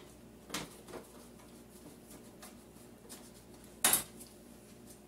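Hand screwdriver working screws out of a stove's sheet-metal back panel: quiet handling with a couple of light metal clicks, then one sharp metallic knock about four seconds in.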